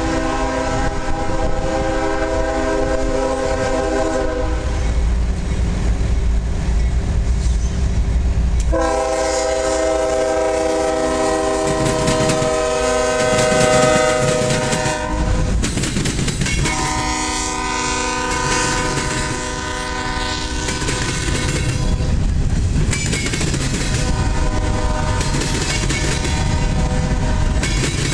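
CSX GE ES40DC diesel locomotive sounding its horn in four long blasts as it approaches and passes. Under the horn are the deep rumble of the locomotives' engines and the clatter of freight-car wheels crossing the rail diamond.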